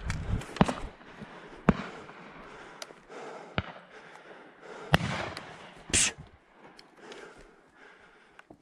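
Several sharp shotgun reports during a thrush shoot, spaced a second or two apart and sounding like firecrackers, with a brief hiss about six seconds in.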